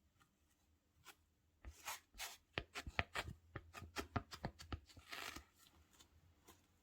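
Hands handling a sneaker box and its packing: a quick, uneven run of taps and clicks starting about a second and a half in, ending in a short rustle.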